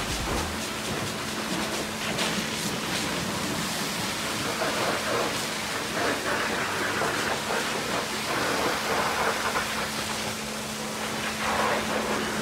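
High-pressure washer jet hissing and spattering as it blasts mud off a dump truck's tyres and the concrete beneath. A faint steady low hum runs underneath.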